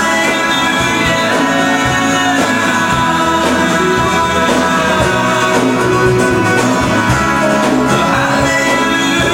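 Live worship band playing a rock-style song: guitars to the fore over bass and drums, with some singing.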